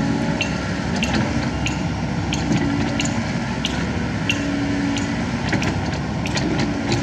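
Kobelco SK75 mini excavator's diesel engine running steadily, with irregular sharp clicks and knocks from the machine at work.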